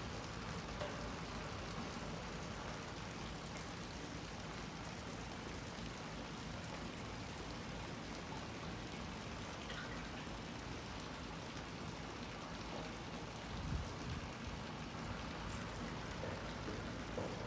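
Steady rain-like outdoor hiss, with a short dull thump about fourteen seconds in.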